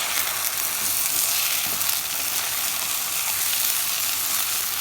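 Pot of vermicelli for rice sizzling loudly and steadily in butter and oil.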